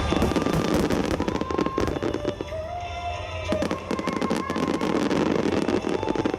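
Large aerial fireworks going off in quick succession, dense cracks and bangs with crackling, over music played through loudspeakers.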